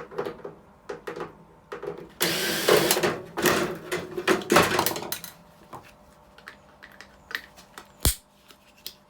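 Power screwdriver running in two bursts, backing out the screws that hold a microwave's fan housing, followed by scattered clicks and knocks of metal parts being handled, with one sharp knock near the end.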